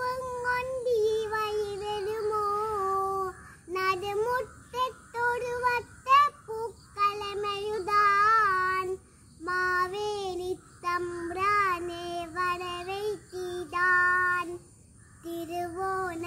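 A young girl singing a Malayalam Onam song (Onappattu) solo, in melodic phrases with brief pauses between them.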